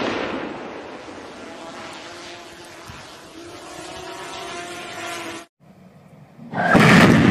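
Rumble fading away after an explosive charge goes off at the base of a steel lattice transmission tower, dying down over about five seconds. After a sudden cut, a loud burst of noise comes near the end.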